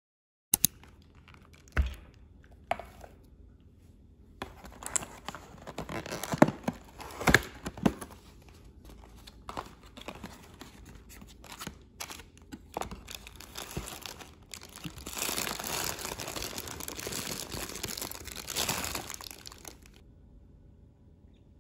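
A cardboard takeaway food box and its paper wrapping being handled and opened: scattered sharp knocks and taps as the box and plastic cups are moved, then a long stretch of paper rustling and tearing that stops suddenly.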